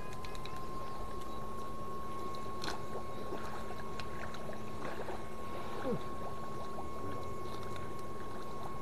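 Battery-powered electrofishing unit giving a steady high whine, one unchanging tone, while a man wades through a muddy pond with occasional splashes.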